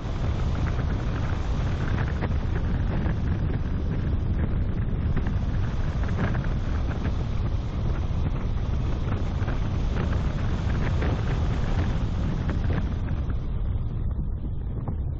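Wind buffeting the microphone of a bonnet-mounted camera over the steady rumble of a car driving on a tarmac road.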